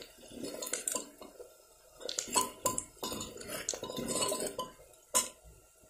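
Steel ladle stirring and scraping spiced onion masala in an aluminium pressure-cooker pot, clinking against the metal sides in several bouts, with a sharper knock a little after five seconds.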